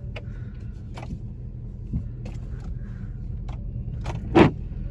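Pickup truck's engine running low and steady, heard inside the cab as it crawls over a rough dirt trail, with scattered clicks and knocks from the cab and one louder clunk near the end.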